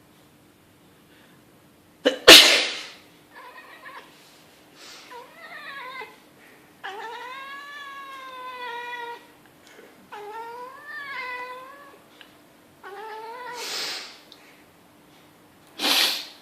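A person sneezes loudly, and a pet cat answers with a run of about five meows, one long drawn-out one in the middle. Another sneeze comes near the end.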